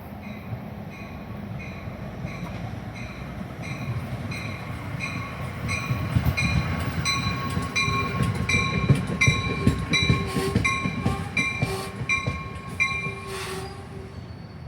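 A train's warning bell ringing about twice a second over the rumble of the train, which grows louder from about four seconds in; the bell stops about a second before the end.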